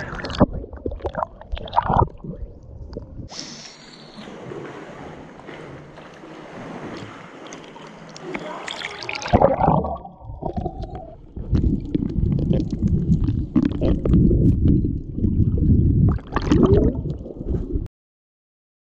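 Water sloshing and splashing around a waterproof camera at the surface, then the dull, muffled rumble of water heard with the camera underwater. The sound cuts off suddenly about a second before the end.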